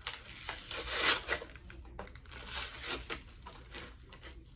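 Plastic packaging being torn open and crinkled by hand, in several rustling spells, loudest about a second in.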